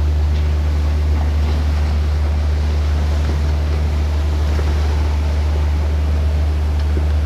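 Passenger ferry's engine running steadily, a low drone heard on board, with wind and water noise over it.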